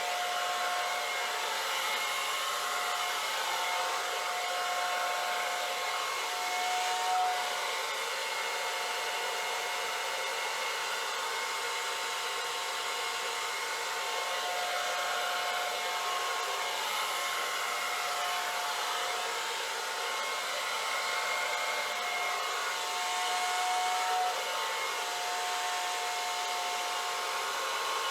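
Handheld hair dryer running steadily, blowing air to push wet acrylic paint across a pour: an even airy rush with a faint whine that briefly rises in pitch twice.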